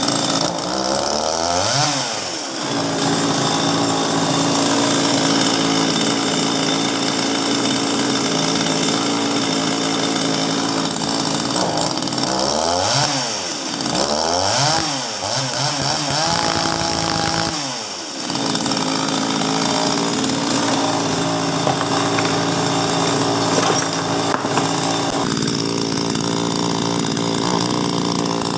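Topwe CN-25 25 cc two-stroke chainsaw engine running on a freshly fitted spark plug. It holds a steady high speed, with the revs dropping and picking back up about two seconds in, a few times around thirteen to fifteen seconds, and again near eighteen seconds.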